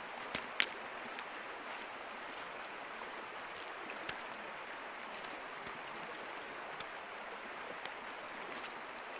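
Steady rush of a shallow stream over stones, with a steady high hiss above it. Scattered sharp clicks and knocks, the loudest two about half a second in, from stones and durian husks being handled.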